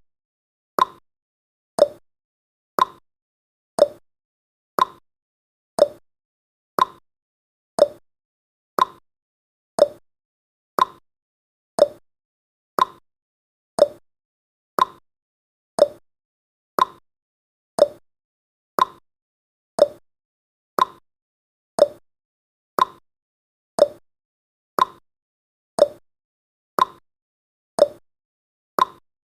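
Countdown timer's clock-ticking sound effect: a short, sharp tick once every second, steady throughout.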